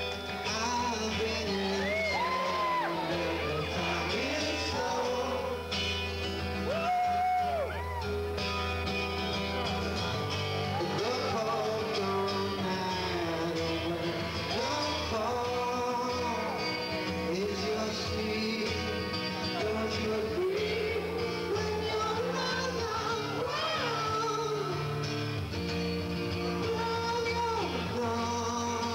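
Live rock song: a man singing into a microphone while playing guitar, over sustained low backing notes. It is taped from the audience on a camcorder's built-in microphone.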